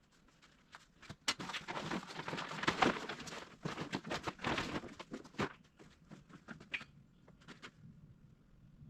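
Electric welding arc crackling irregularly for about four seconds as a bead of weld is run over a crack in a tractor grader blade, then a few scattered clicks.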